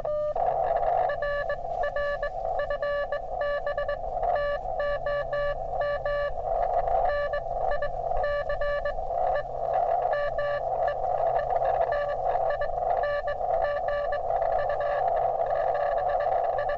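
Morse code (CW) coming through a ham radio transceiver: a beep of about 600 Hz keyed into dots and dashes over a narrow band of receiver hiss. It is a station's closing message in a contact: "RR FB TOM NICE MEETING U 73 BEST DX ES CU".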